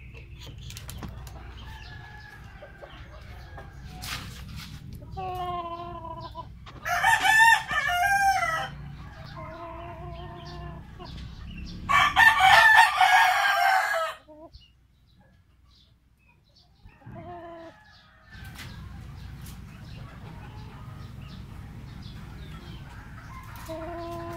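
Roosters crowing: two loud crows about seven and twelve seconds in, each lasting a second or two, with quieter, shorter calls between and after them.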